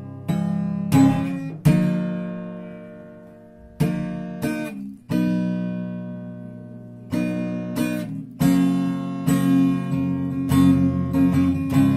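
Acoustic guitar strummed solo, without singing. In the first half single chords are struck and left to ring out and fade for a second or two. From about seven seconds in, the chords come in a steadier, busier strumming pattern.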